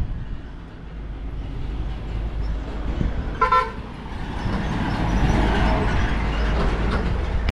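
A vehicle horn gives one short toot, then a small flatbed truck's engine and tyres grow louder as it drives past on the road.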